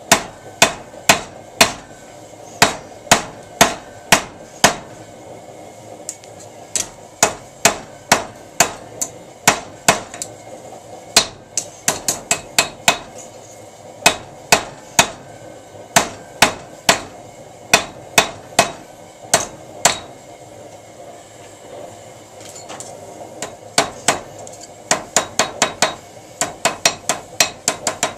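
Hand hammer striking red-hot steel on a small anvil, steady blows about two a second. The blows stop for a few seconds past the middle, then return in a quicker run near the end.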